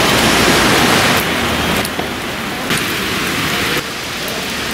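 Heavy rain falling: a steady hiss whose loudness shifts abruptly a few times.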